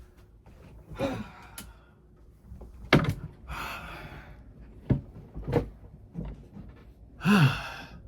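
A man sighing and groaning in boredom, the loudest a long falling groan near the end, with a sharp knock about three seconds in and another about five seconds in.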